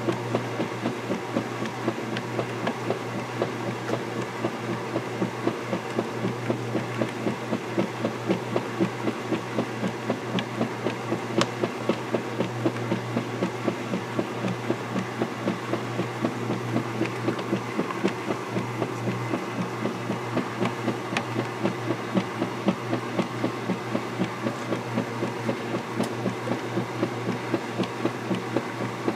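Vintage KitchenAid direct-drive top-load washing machine in its agitate cycle: a steady motor hum under a regular pulsing slosh of water and clothes with each stroke of the large finned agitator.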